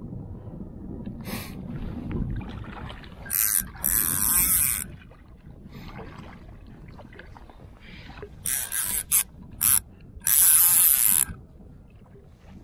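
Fly reel's click-and-pawl ratchet buzzing in about six bursts, the longest about a second, while a large white-spotted char pulls against the line during the fight.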